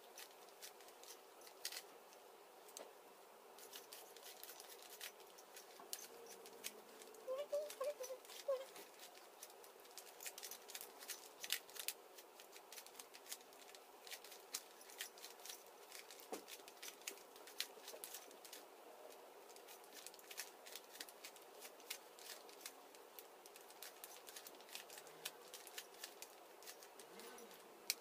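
Faint, irregular plastic clicking and snapping of a Rubik's Cube's layers being turned by hand in quick bursts, busier in the second half.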